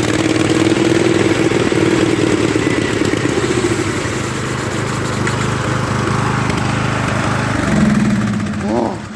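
Pulley-swapped riding lawn mower engine running flat out, loud and steady. Its pitch shifts about eight seconds in, and the sound cuts off right at the end.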